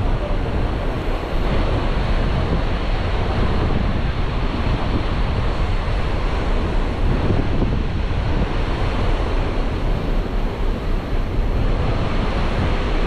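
Steady wind buffeting the microphone on the deck of a moving ferry, mixed with a constant rush of wind and sea; the rumble is heaviest in the bass.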